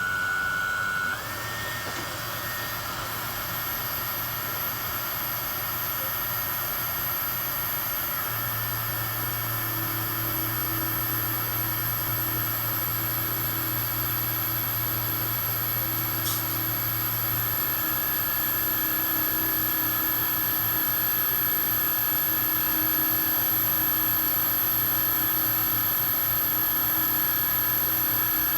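Homemade mini lathe running steadily under its motor, with a high whine that steps up in pitch about a second in, while it takes a light finishing cut. A low hum joins partway through and fades again, and there is one brief click in the middle.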